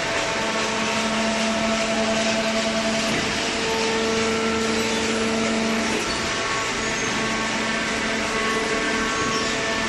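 Industrial machinery running: a steady whirring hum with a few held tones, one of which shifts about halfway through.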